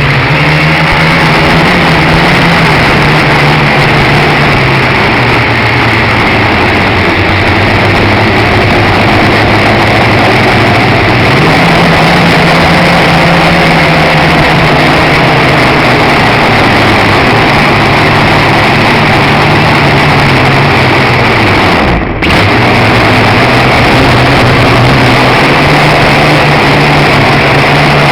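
Dromida Ominus quadcopter's motors and propellers buzzing loud and close, the pitch stepping up and down every few seconds as the throttle changes. The sound briefly cuts out about three-quarters of the way through.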